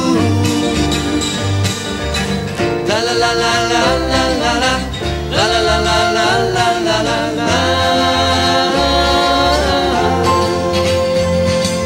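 Country-tinged pop song played on acoustic and electric guitars with a bass line, in an instrumental break between sung lines. A gliding melody line runs over the strummed chords.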